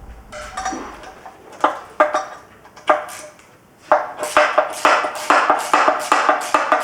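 A few separate sharp metal clinks and knocks of tools on the engine. About four seconds in, a percussive music track with a quick, even beat starts.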